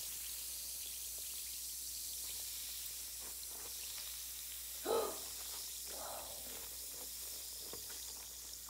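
Bath bomb fizzing as it dissolves in water: a steady high hiss of bubbles with faint tiny popping ticks.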